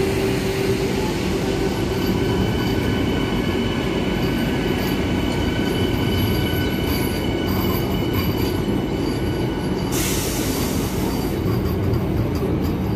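Vande Bharat Express electric trainset rolling past as it draws into the platform: a steady low rumble of the coaches with a thin high wheel squeal running through it. About ten seconds in, a sudden hiss joins in.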